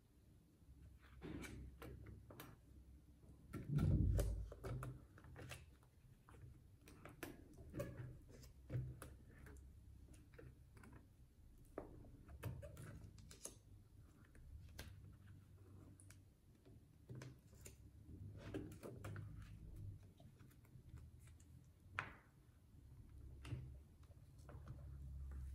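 Clear plastic binder sleeves being turned and handled: irregular crinkling rustles and light clicks, with a heavier thump about four seconds in.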